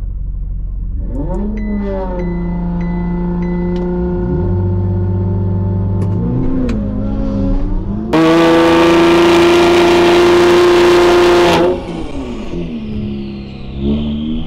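Ferrari 488's twin-turbo V8 revving at a drag-strip start. The revs climb and hold, then a much louder stretch of steady high revs lasts about three and a half seconds and cuts off sharply. After that the revs fall and climb again.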